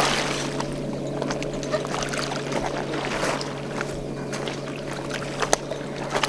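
River water sloshing and lapping against a rocky shore, with small scattered clicks and a steady low hum underneath.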